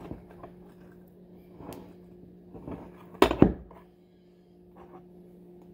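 Soft scraping and tapping of a spatula spreading cream cheese and marshmallow cream in a glass baking dish. Two loud knocks close together come about three seconds in. A low steady hum runs underneath.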